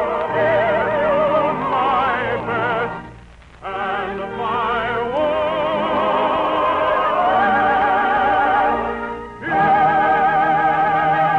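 Operetta music: a voice singing with heavy vibrato over an orchestra, dropping away briefly twice, about three and nine seconds in.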